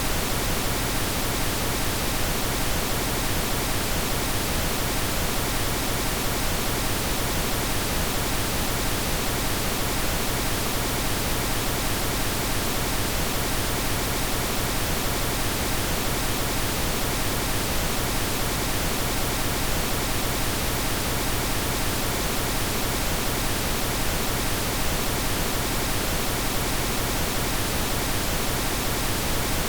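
Steady pink noise, an even hiss spread across all pitches that does not change.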